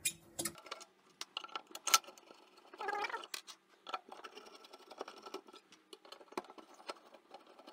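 Screwdriver working out the screws on the recoil starter housing of a Tecumseh two-stroke engine: scattered small metal clicks and scrapes, with one sharp click about two seconds in.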